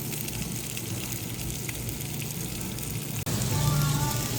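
Food sizzling on a hot pan, a steady hiss. About three seconds in it cuts off suddenly and background music with light tones comes in.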